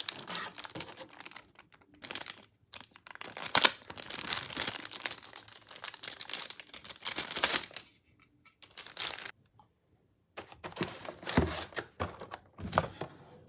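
Packaging being handled and opened: plastic and paper crinkling and tearing in irregular bursts with short pauses, and a couple of sharp clicks.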